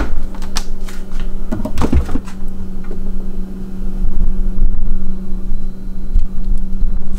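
A refrigerator door is pulled open, with a few knocks and rattles in the first two seconds. Then a steady low appliance hum goes on under a low rumble.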